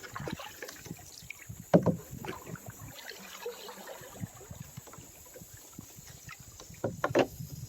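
Canoe being paddled: scattered paddle splashes and knocks on the hull, the loudest about two seconds in and two more close together near the end.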